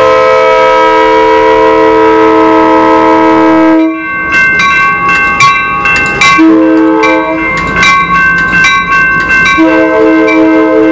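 Amtrak train's air horn sounding a multi-note chord: a long blast of about four seconds, a short blast of about a second, then another long blast starting near the end. Under it, the wheels of the passing Superliner cars clack sharply on the rails.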